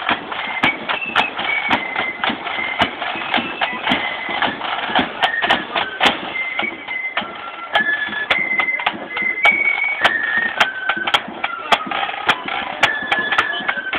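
Marching band playing a march as it passes: a high melody of held notes stepping from pitch to pitch over frequent sharp drum strikes.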